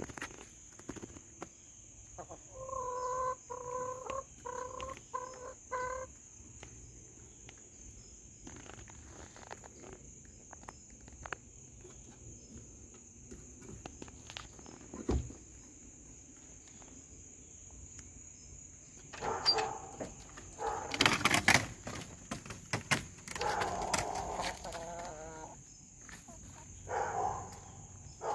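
Domestic hens clucking and squawking: a drawn-out call a few seconds in, then louder bouts of squawking and clucking in the second half, with small scratching clicks between.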